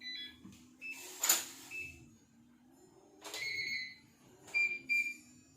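Solity GP-6000BAK electronic smart lock beeping and chiming as a fingerprint is read and accepted, with a few sharp mechanical clicks from the lock, the loudest about a second in and again in the middle.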